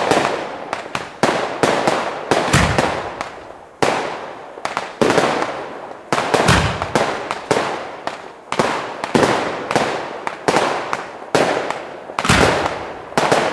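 Aerial fireworks bursting overhead: a rapid, uneven string of sharp bangs, each trailing off in echo, with three deeper, heavier booms spread through.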